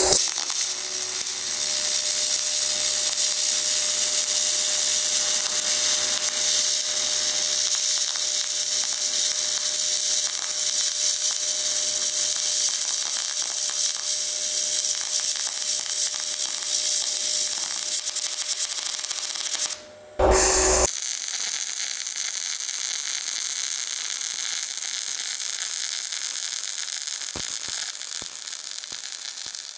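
MIG/MAG welding arc on 304 stainless steel with 1.2 mm 308L solid wire, a steady crackling hiss. About 20 seconds in it cuts off, and a second weld starts, this time under argon with 18% CO2 instead of 2.5% at a slightly higher current.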